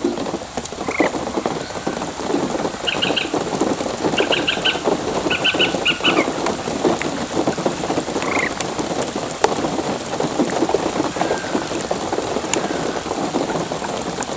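Heavy rain falling steadily on a pond's surface during a thunderstorm. Short bird calls break through it, in quick runs of high notes a few seconds in and single calls near the start and the middle.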